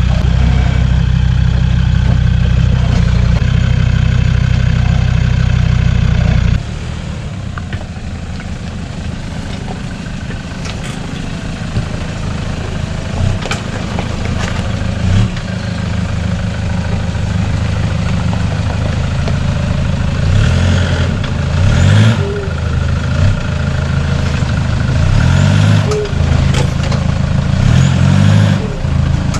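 A Land Rover Defender's engine running steadily and loudly at close range, cutting off abruptly about six seconds in. Then a Toyota Hilux pickup's engine runs and revs up and down in short bursts as it crawls over rock, with occasional sharp knocks.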